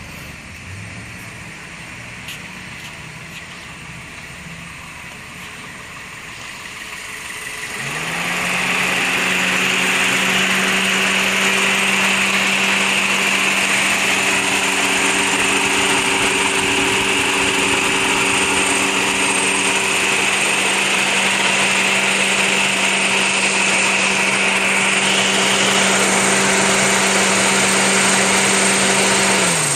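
1999 Toyota Corolla four-cylinder engine running warm: idling quietly at first, then brought up with a short rise in pitch about eight seconds in and held at a steady higher speed, dropping back right at the end. At this temperature the misfire it has when cold has gone.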